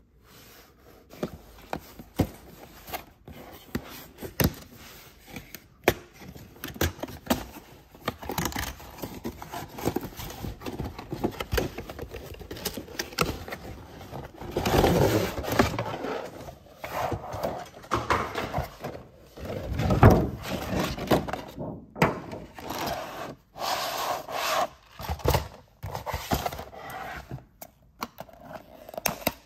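Cardboard toy packaging being handled and opened: cardboard rubbing and scraping, with many sharp taps and clicks. Near the end, scissors snip plastic ties on the cardboard insert.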